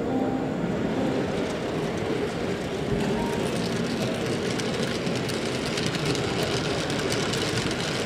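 H0-scale model freight train running on the layout track, its wheels and motor giving a steady rolling rumble, over the even background noise of an exhibition hall.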